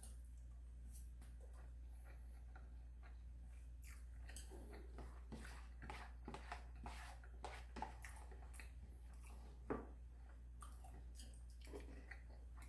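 Quiet eating sounds: a run of small clicks and smacks from chewing and handling food, with one louder click about ten seconds in, over a steady low hum.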